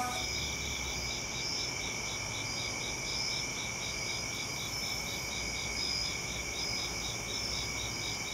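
Crickets chirping in a steady night chorus, one of them pulsing evenly at about four chirps a second over a continuous high trill.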